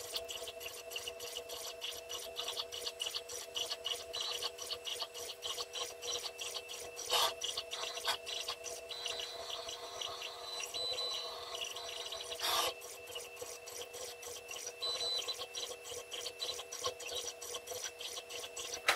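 CNC router drawing with a pen on plywood: its stepper drives hum steadily while the pen tip scratches and ticks against the wood in quick short strokes. There are two louder scrapes, about seven and twelve and a half seconds in.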